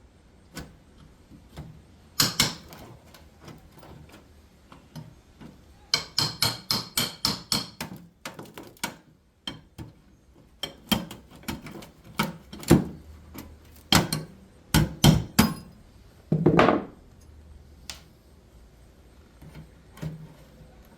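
Hammer blows while tearing out a floor HVAC vent: scattered sharp knocks, a quick run of about eight blows around six seconds in, and a half-second grating sound about sixteen seconds in.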